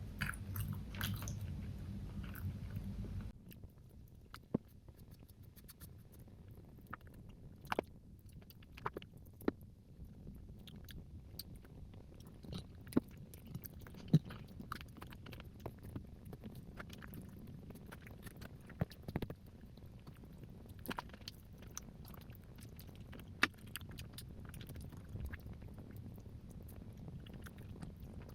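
Close-miked eating sounds: chewing with soft wet mouth noises and scattered sharp clicks, a few of them loud. A denser, louder stretch in the first three seconds cuts off abruptly.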